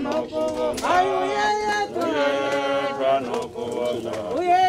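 A group of voices singing unaccompanied, with long held notes that slide from one pitch to the next.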